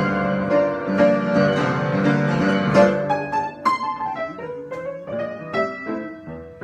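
Improvised instrumental music, most likely solo piano: layered, sustained notes for the first few seconds, then separate notes struck one after another and left to ring.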